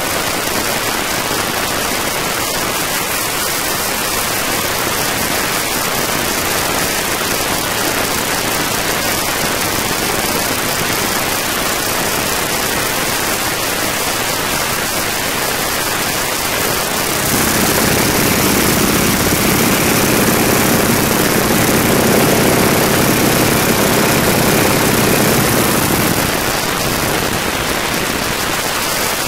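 Boeing Stearman biplane's radial engine droning steadily in flight under heavy wind rush on the microphone in the open cockpit. A little past halfway the engine's hum comes through louder and clearer for about nine seconds, then drops back near the end.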